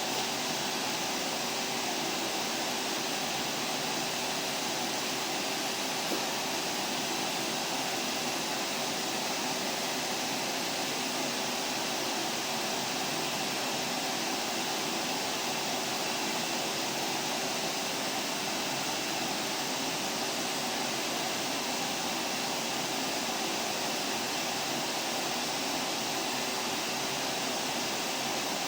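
Vacuum cleaner running steadily: an even rushing hiss with a faint steady hum in it.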